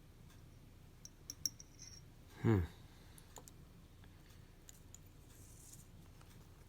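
Small, faint clicks and taps of tweezers and tools on tiny watch parts, a few in quick succession about a second in. About two and a half seconds in comes the loudest sound: a brief, falling-pitched tone.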